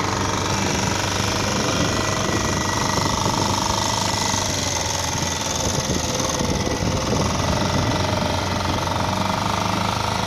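Mercury outboard motor running steadily under way while towing a loaded inflatable raft.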